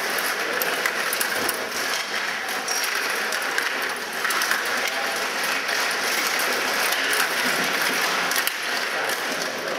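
Stiga table hockey game in play: a continuous rattling clatter of the metal player rods being spun and pushed, with rapid clicks and knocks of the plastic figures and puck.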